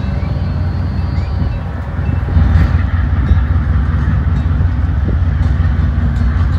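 Deep, steady rumble of a Great Lakes self-unloading freighter passing close by, growing a little louder about two seconds in.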